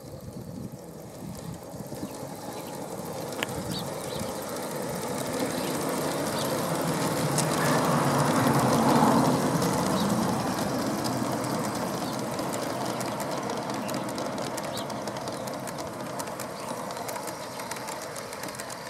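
1/24th scale model of a New Zealand Railways Da class diesel locomotive and its carriages running on garden-railway track, a steady rumble with faint wheel clicks. It grows louder as the train passes close, loudest about halfway through, then fades as it runs away.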